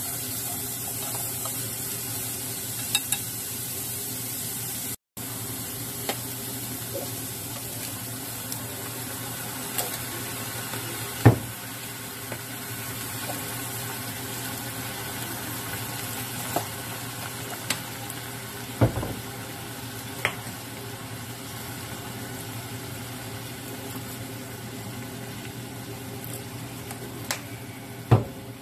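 Chopped onion sizzling in a small frying pan as it is stirred and sautéed until soft. A utensil knocks against the pan now and then, loudest about a third of the way in, about two-thirds in and near the end.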